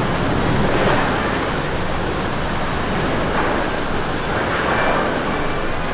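Steady loud jet-engine noise and low rumble of a Boeing 787-9's Rolls-Royce Trent 1000 engines during the landing rollout on a wet runway.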